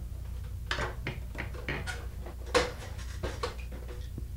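Rustling and small clicks of hands handling alarm wire and a resistor close to a clip-on microphone, with one sharper click about two and a half seconds in, over a low steady hum.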